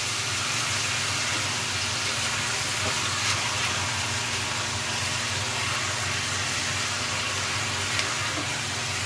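Chicken wings sizzling in a pot over a gas burner as they are stirred with a silicone spatula: a steady, even hiss, with a couple of faint taps about three seconds in and near the end.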